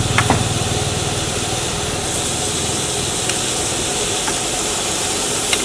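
Shredded cabbage and greens sizzling on a large, hot flat wok with a steady hiss, over a low hum. A metal spatula scrapes and clinks against the pan a couple of times, near the start and near the end.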